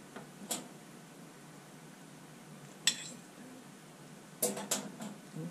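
Kitchen utensils and a plate clinking and knocking against crockery as chicken stew is dished up from a slow-cooker crock: a few separate clinks, the sharpest about three seconds in, then a quick run of knocks near the end.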